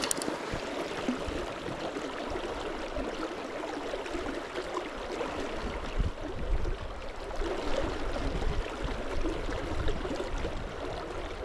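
Low-water river current running steadily, a constant rush of flowing water, with irregular low rumbles on the microphone that grow stronger about halfway through.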